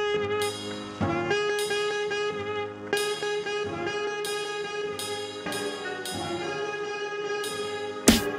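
Jazzy instrumental background music led by horns, with sustained held notes. Near the end it switches abruptly to a louder, bass-heavy passage.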